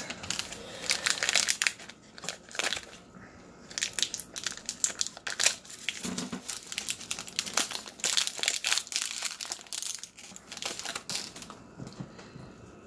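Plastic wrappers of 2020 Panini Prestige football fat packs crinkling and tearing as they are opened by hand, in three spells of crackling with short pauses between.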